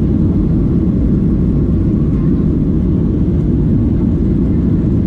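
Steady low rumble inside the cabin of a Boeing 737-800, from its CFM56-7B jet engines.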